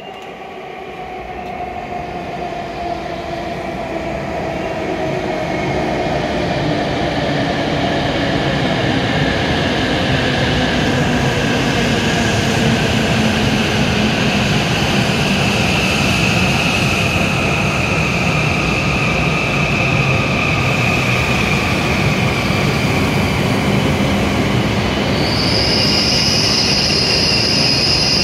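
W7 series Shinkansen train arriving at a station platform, growing louder over the first few seconds as it draws in. Its motors whine and fall slowly in pitch as it slows, and a high squeal starts near the end as it comes to a stop.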